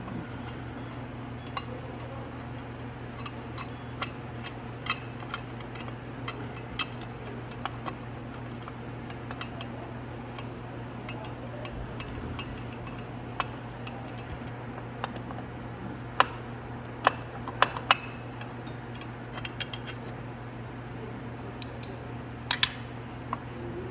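Scattered metallic clicks and clinks of a small ratchet and 8 mm socket working on the sprocket cover bolts, with a few quick clusters of clicks, over a steady low hum.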